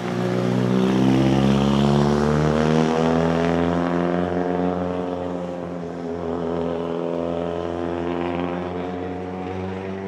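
Toyota Corolla WRC rally car's 2.0-litre turbocharged four-cylinder engine running at an even, fairly steady pitch as the car passes close by. It is loudest a second or two in, then slowly fades as the car pulls away.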